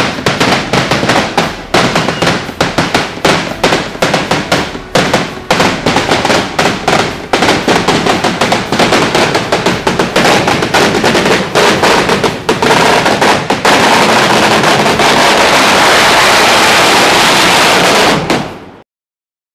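A Kerala temple vedikettu, a chain of 1001 ground firecrackers laid in a star pattern, going off in sequence: sharp bangs several a second that come faster and faster until, about 14 s in, they merge into one continuous crackling blast, which cuts off suddenly near the end.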